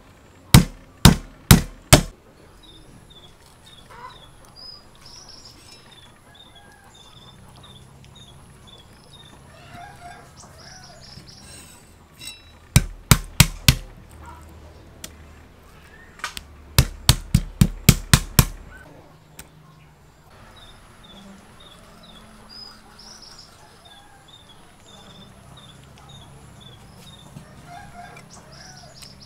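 Cleaver striking chicken breast on a wooden chopping board in quick bursts: about five strikes at the start, about five more around the middle, then a faster run of about nine. Birds call in the quiet stretches between.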